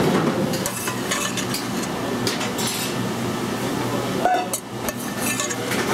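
A metal serving spoon scraping and clinking against a stainless steel pan and a ceramic pasta bowl as pasta and sauce are spooned out, in scattered short clatters over a steady low hum.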